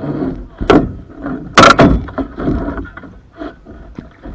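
A wooden canoe paddle knocking against the canoe's gunwale and hull: two sharp knocks about a second apart, the second the loudest, followed by smaller clunks.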